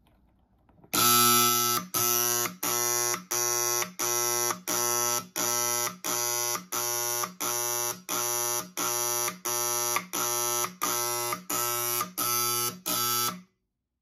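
Wheelock 31T AC horn sounding the leak alarm in march time: a loud, low buzzing blast pulsing about one and a half times a second, the first pulse held a little longer, about eighteen pulses in all, then cutting off suddenly near the end.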